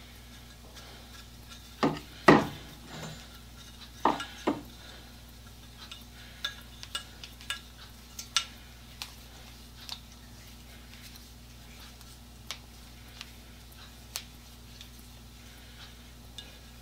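Metal tools and parts clinking and clanking as they are handled on a workbench. Two pairs of louder knocks come about two and four seconds in, followed by scattered light ticks and clinks over a faint steady hum.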